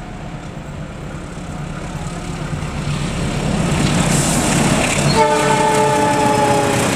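CC206 diesel-electric locomotive hauling a passenger train, approaching with a rumble that grows louder, then sounding its horn in one long blast about five seconds in.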